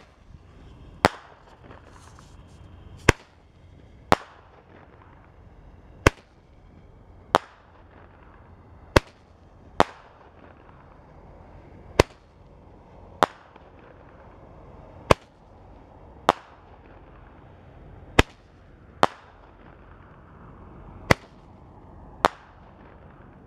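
Roman candle (Legend Fireworks Color Coconut Candle, 8-ball) firing: about fifteen sharp pops, one every second or two.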